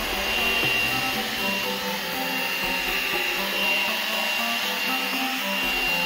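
Handheld mini vacuum cleaner running steadily with a high motor whine, under background music.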